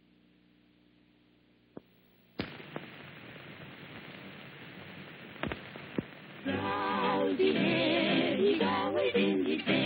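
Old film print's soundtrack: a faint hum, then steady hiss with a few sharp clicks and pops, and about six and a half seconds in, singing with music begins.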